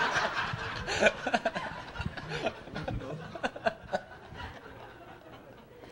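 A small audience and the people on stage laughing and chuckling, loud at first and then dying away into scattered chuckles.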